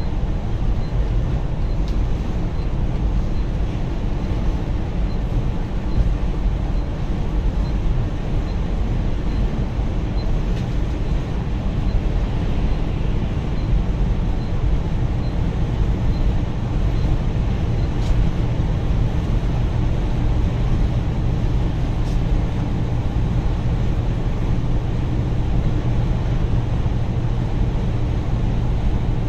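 Bus engine running steadily at speed with road and tyre noise, heard from inside the coach.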